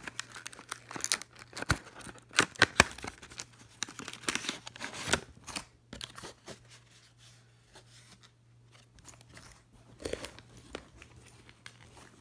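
Fidget spinner packaging being torn and crinkled open by hand. Busy tearing and crinkling through the first half gives way to sparse, quieter rustles and clicks, with another short flurry near the end.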